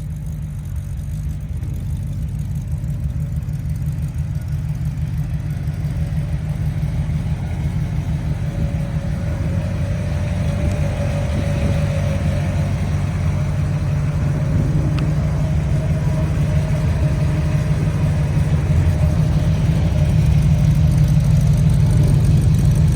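Carbureted 350 crate V8 of a Jeep CJ-5 idling steadily with a deep, even note, growing gradually louder.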